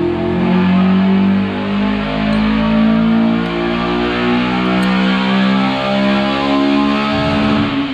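Background music led by guitar, with sustained chords changing every second or so.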